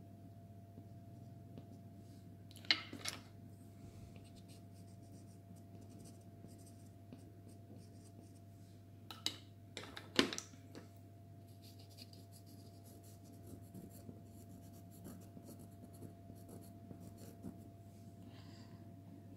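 Faint scratching of soft pastel worked over pastel card, broken by a few sharp taps or clicks about 3 seconds in and again around 9 to 10 seconds in.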